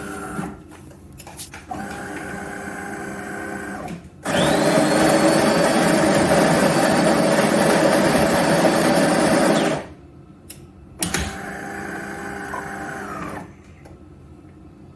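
De'Longhi Magnifica Start automatic coffee machine running through a cycle. It hums steadily in short runs, broken by a loud, steady, noisy run of about five seconds in the middle. A sharp click comes shortly before the last hum, which stops a little before the end.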